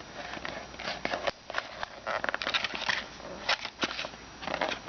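Plastic trading-card pack wrapper crinkling and rustling in the hands, with irregular crackles, as it is pulled and twisted while resisting being torn open.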